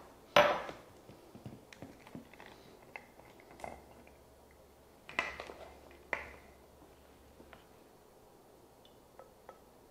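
Kitchen handling sounds: a drinking glass is set down on a stone countertop with a sharp knock about half a second in. Then come small clicks and a few knocks as the plastic lid of a BlendJet portable blender is unscrewed and put down, before the jar is tipped to pour.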